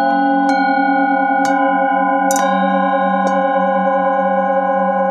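Brass singing bowl struck with a wooden mallet about four times, roughly once a second, each strike adding to a layered, sustained ringing with a wavering, beating low tone. The strike a little past the middle is the sharpest.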